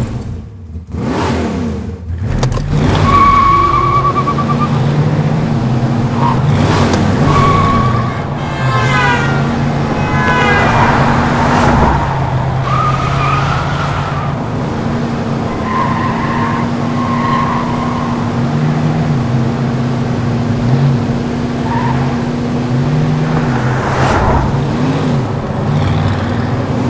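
Old car's engine running at road speed, its pitch holding and then stepping up and down with the throttle, with tyres squealing briefly several times through the curves.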